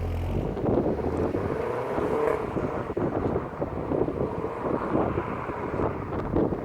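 Peugeot 208 GTI's 1.6-litre turbocharged four-cylinder running with the car under way, its engine note wavering slightly, mixed with wind noise on the microphone.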